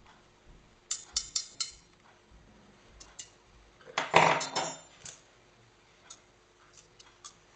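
Metal and plastic parts of a hand mixer being handled, with no motor running. Four sharp clicks come close together about a second in, then a louder clatter of clinks about four seconds in, and a few faint ticks near the end.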